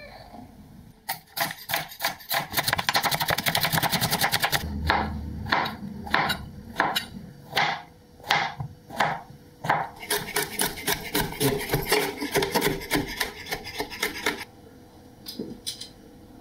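A kitchen knife chopping on a bamboo cutting board. There are two fast runs of rapid chopping, one early and one late. Between them come slower single cuts through king oyster mushroom stems, and there are two last taps near the end.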